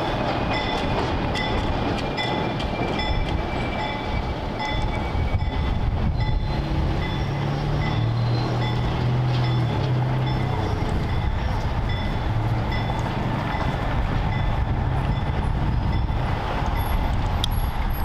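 ALCO S2 switcher locomotive's turbocharged six-cylinder diesel running as it approaches with its train, the low engine note swelling for a few seconds in the middle. A bell rings steadily, about two strokes a second, over the engine.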